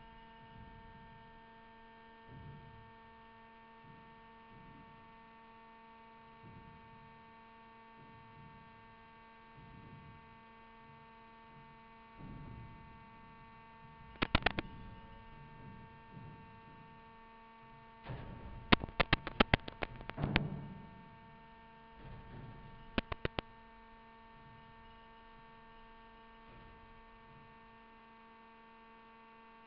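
Steady electrical hum with a stack of overtones, with soft low rumbles every couple of seconds. Sharp clicks come in a few clusters: a short group about a third of the way in, a rapid run of about eight some seconds later, and three more soon after.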